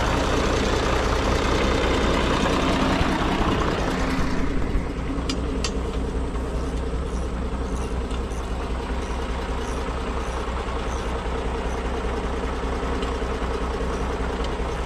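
Farm tractor's diesel engine running at idle: a fuller, louder run for about the first four seconds, then settling to a quieter steady idle hum.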